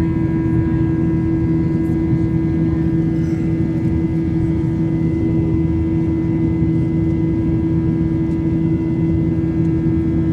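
Inside the cabin of a Southwest Airlines Boeing 737-800 climbing out after takeoff, its CFM56-7B turbofan engines drone steadily. A strong low hum sits over a dense rumble.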